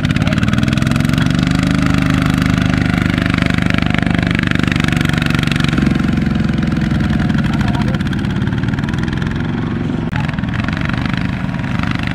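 Two-wheel walking tractor's single-cylinder diesel engine running hard while it hauls a loaded rice-sack trailer through mud. The revs climb over the first couple of seconds, then hold steady under load.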